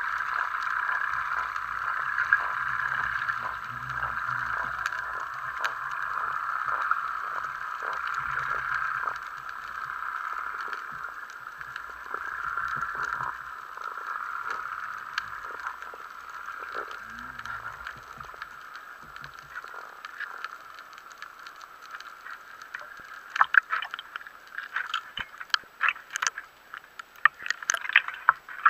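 Water rushing past an underwater camera as it rises toward the surface: a steady hiss with low rumbles of movement, fading gradually. From about two-thirds of the way in come a run of sharp clicks and splashes at the surface.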